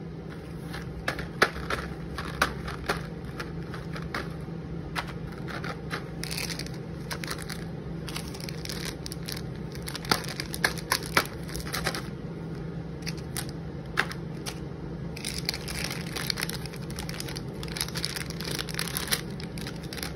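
Plastic wrappers of small Cadbury Gems and Shots chocolate packets crinkling and crackling as they are picked up and handled, with many sharp clicks. The crinkling is densest about six seconds in and again over the last few seconds, over a steady low hum.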